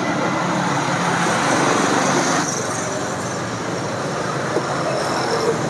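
Steady road traffic noise, its hiss easing a little about halfway through, with two light clinks of a steel ladle near the end.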